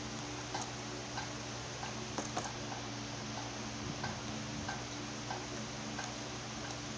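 Short sharp clicks, roughly one every two-thirds of a second with a quick cluster about two seconds in, over a steady low hum and hiss.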